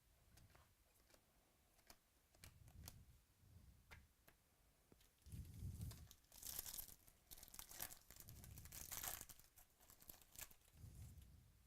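A trading-card pack wrapper being torn open and crinkled, loudest in a crackly stretch about halfway through, with small clicks of cards being handled and a few soft thumps.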